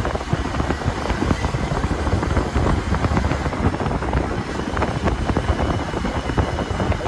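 Bajaj CT 100 motorcycle ridden at a steady speed: wind rumbling on the microphone over the running of its small single-cylinder engine.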